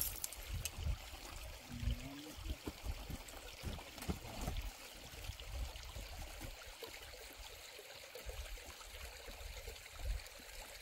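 Water running and trickling steadily, with scattered dull low knocks.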